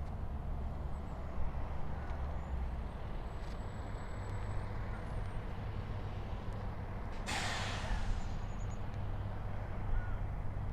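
Steady low rumble of distant road traffic, with a sudden hiss about seven seconds in that fades within a second, like a truck's air brakes releasing.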